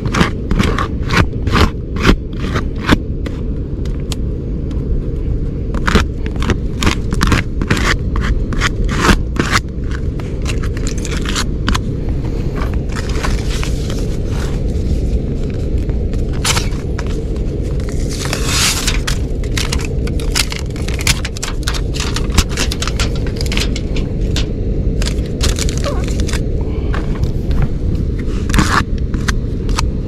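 Aluminium foil tape being peeled and pressed onto a leaking duct to seal it: a string of crinkling clicks and scrapes, with a longer scraping stretch about two-thirds of the way in, over a steady low rumble.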